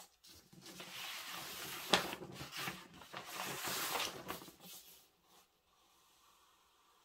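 Large sheet of kraft pattern paper rustling and sliding on the table as it is handled and turned, with one sharp knock about two seconds in. The rustling dies away about five seconds in.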